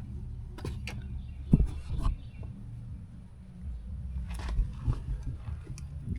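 Muffled, bass-heavy music from a nearby car stereo, heard mostly as a low thumping rumble, with a few sharp clicks and knocks over it, the loudest about a second and a half in.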